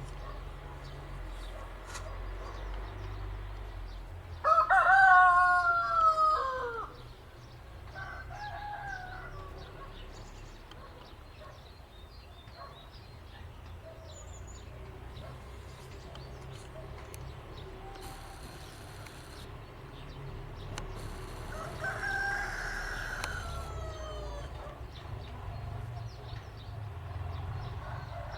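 A rooster crowing: one loud cock-a-doodle-doo about four seconds in that falls in pitch at its end, a short call soon after, and a weaker crow about two-thirds of the way through, over a steady low hum.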